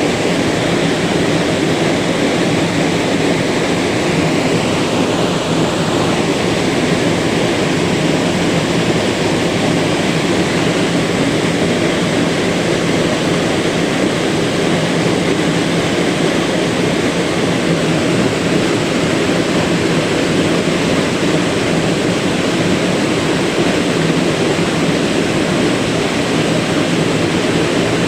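River water rushing steadily, an even loud noise with no change.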